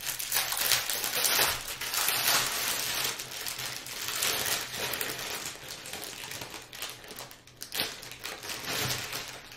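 Plastic bags crinkling and rustling as a bag of small zip-lock bags of diamond painting drills is opened and handled. The crinkling is busiest in the first few seconds and thins out toward the end.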